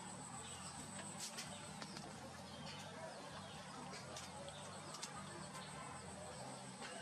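Quiet outdoor ambience: a steady high-pitched insect drone under faint bird chirps, with a few light clicks scattered through.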